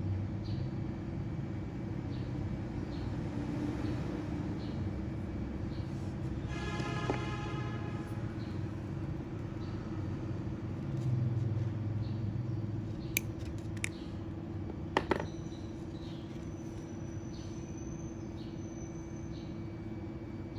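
Steady low hum and rumble of room noise, with a brief squeak about a third of the way in. A little past the middle come a few sharp clicks, the snips of side cutters trimming monofilament fishing line at a hook's knot.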